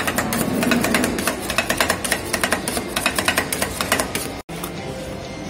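Rapid clatter of metal spatulas striking a steel ice cream roll cold plate as the ice cream mix is chopped with fruit. The clatter stops with a brief dropout about four and a half seconds in.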